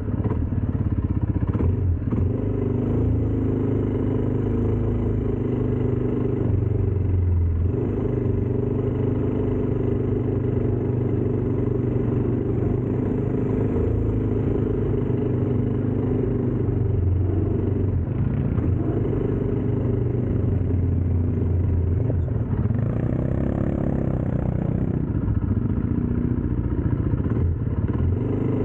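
ATV engine running steadily, with a few brief knocks.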